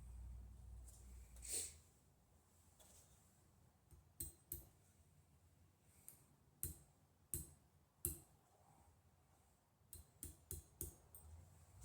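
Light, sharp metal taps and clicks from working a small fine silver ring with hand tools: a brief hiss about a second and a half in, a handful of single taps spread out, then a quick run of about five taps near the end.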